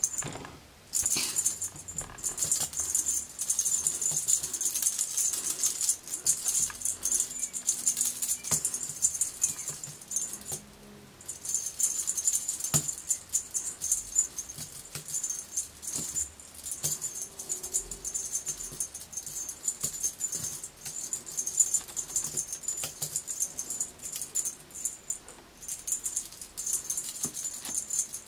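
Cat wand toy being shaken, a steady high, jingly rattle with short pauses about a second in, around the middle and near the end.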